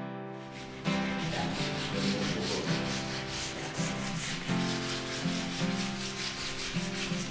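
Repeated rasping strokes of hand-sanding along a painted door frame, starting about a second in, over background music.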